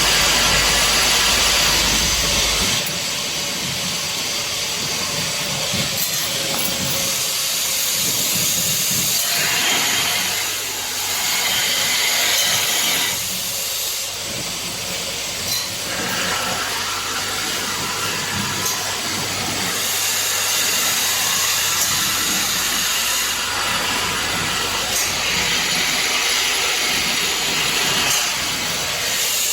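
Automatic screw-fastening assembly machine for washing-machine drums running: a steady mechanical noise, with high hissing that comes and goes every few seconds and a few sharp clicks.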